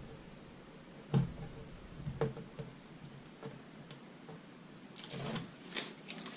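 Scattered light clicks and taps of hands working double-sided tape onto a laptop's screen lid, with a short cluster of rustling ticks about five seconds in.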